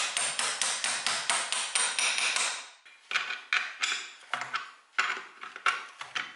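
Ratcheting wrench clicking as a nut is tightened onto a bolt through a chair's wooden back rail: a fast, continuous run of metallic clicks, then shorter runs of clicks with pauses between them.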